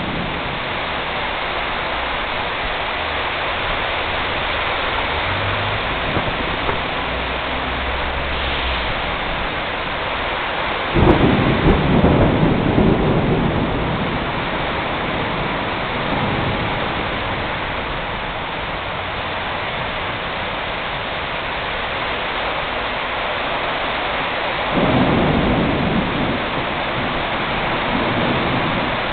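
Steady rain falling, with two sudden claps of thunder: a loud one about eleven seconds in that rumbles on for a few seconds, and a weaker one about twenty-five seconds in.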